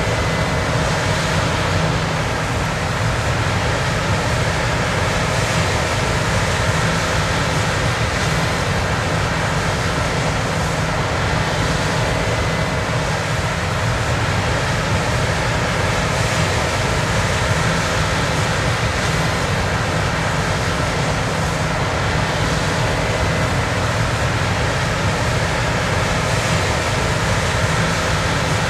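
Steady, unchanging machine noise mixed with a rushing hiss, with no distinct rhythm or sudden events.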